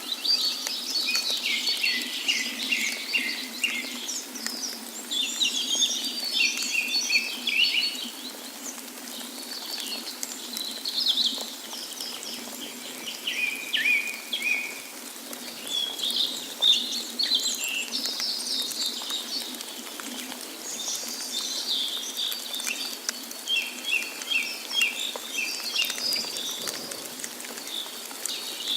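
Several songbirds singing and chirping in overlapping short phrases, over a steady background hiss.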